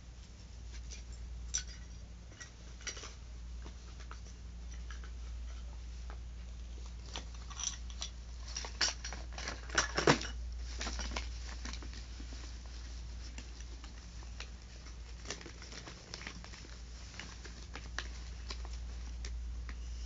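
Handling noise of medals and their ribbons being packed into a box: scattered small clicks, taps and rustles, busiest and loudest about halfway through, over a steady low hum.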